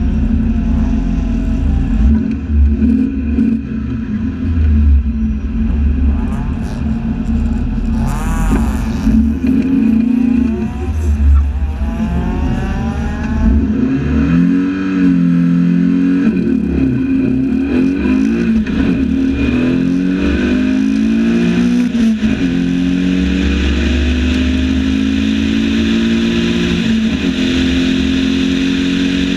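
Lotus 7 replica's engine running at the start line with a few blips of the throttle, then pulling away hard, its pitch rising through several upshifts about halfway through. It then holds a steady high note at speed, with wind rushing past the open cockpit.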